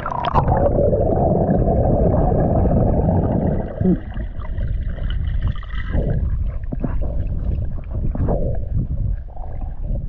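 Muffled underwater sound of water rushing and gurgling around a submerged action camera as the swimmer dives. It is loudest and steadiest over the first four seconds, then breaks into quieter, irregular knocks and swells.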